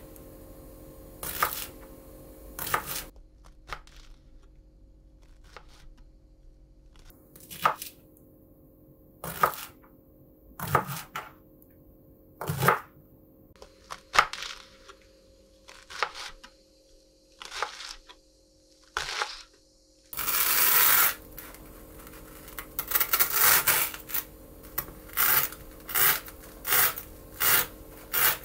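A string of separate sharp clicks and knocks, roughly one a second or two apart, over a faint steady hum. About twenty seconds in comes a rustling burst, followed by a quicker run of clicks.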